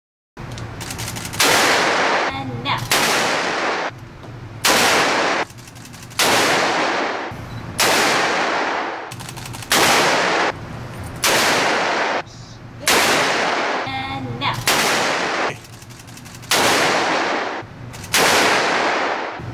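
Handgun shots fired one at a time, about a dozen, roughly one every second and a half, each a sharp crack that rings on and fades in the echo of an indoor shooting range.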